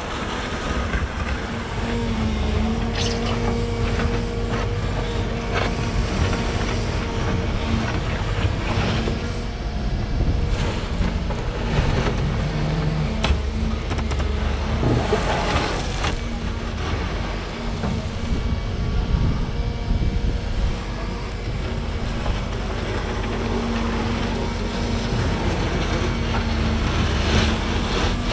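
Volvo ECR235EL excavator running steadily with a low rumble and a steady hum while its tiltrotator bucket digs gravel. Scattered sharp knocks and stone rattles come from the bucket scraping the ground.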